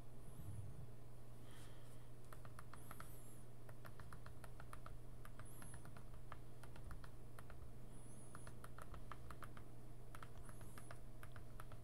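Computer keyboard typing: several short runs of quick keystrokes with pauses between them, over a faint steady low hum.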